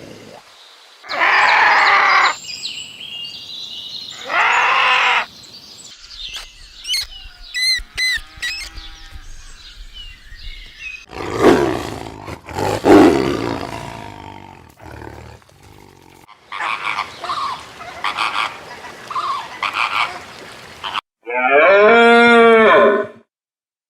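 A run of different animal calls played one after another with abrupt cuts: loud calls and roars, high chirping in the middle, and a long pitched call near the end.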